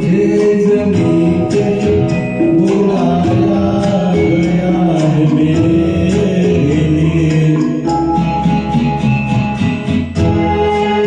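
Karaoke backing track of a Hindi film song playing: long held melody notes over light, steady percussion.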